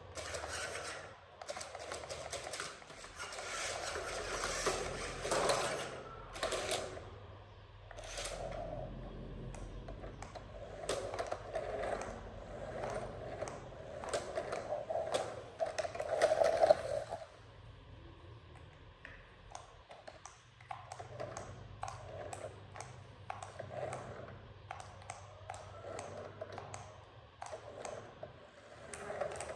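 Toy RC vehicles rattling and clattering over a course, with many irregular clicks and a louder clatter in the first half.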